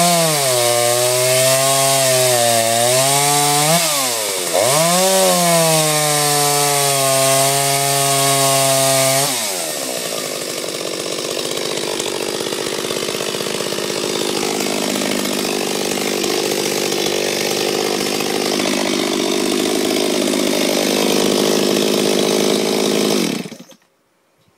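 Stihl 034 AV two-stroke chainsaw cutting through a log, its engine note sagging and swinging under load, with a brief rev-up around four seconds in. At about nine and a half seconds it drops to a steady idle, then is switched off and stops suddenly near the end.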